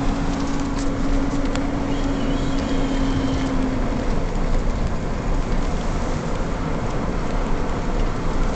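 Steady road and engine noise inside a moving vehicle's cabin, with a steady hum that fades out about four seconds in.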